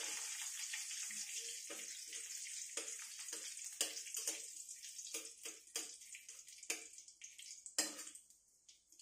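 Cumin, dried red chilli and bay leaf sizzling in hot oil in a steel kadhai, a tempering (tadka) of whole spices, while a steel spatula scrapes and clicks against the pan in short strokes. The sizzle dies away over the last few seconds.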